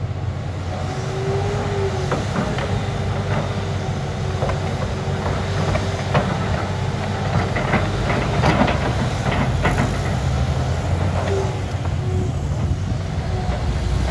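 Liebherr 964 hydraulic excavator's diesel engine running under load with a steady hydraulic whine. Soil and stones clatter into a dump truck's steel bed as the bucket is emptied, densest about two-thirds of the way through.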